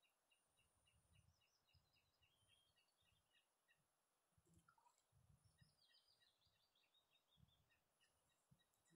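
Near silence with faint birdsong: a small bird repeats a short, high chirp about three times a second, and a busier run of higher calls comes in the middle.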